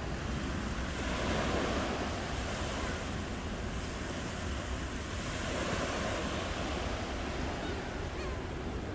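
Ocean waves breaking and washing on a shore, two waves swelling and falling away about four seconds apart.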